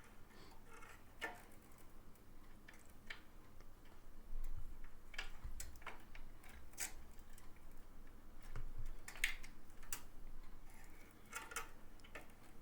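Irregular small clicks and light knocks of a power-supply cable and its plastic CPU power connector being handled and fitted inside a small PC case, with a few dull bumps.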